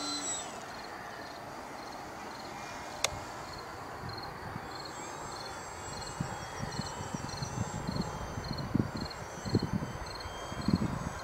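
Insects in the meadow grass chirping in short, evenly spaced pulses, about two a second. At the very start the high whine of the RC plane's electric motor falls away as it is throttled back.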